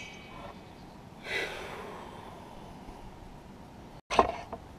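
Quiet handling of small engine parts: a short breathy sniff about a second in, then a sharp metallic clink near the end as the piston's wrist pin is handled.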